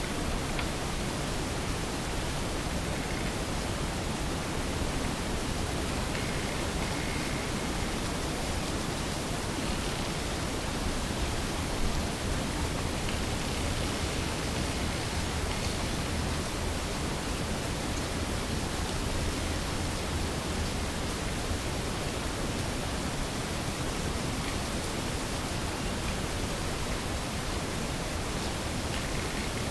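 Steady hiss of a voice recorder left out at night, with a faint low hum beneath it and one brief, faint knock-like spike about twelve seconds in.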